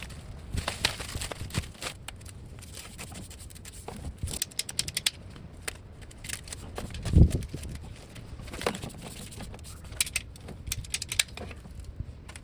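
Irregular clicks, knocks and rattles of hands working with plumbing parts and tools, with quick runs of clicking and one heavier thump about seven seconds in.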